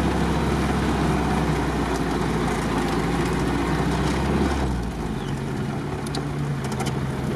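GAZ-69 engine running at low speed through a muddy puddle, heard from the open cab with the windshield removed. About two-thirds of the way in the engine note drops as the throttle eases off, and a few light clicks follow.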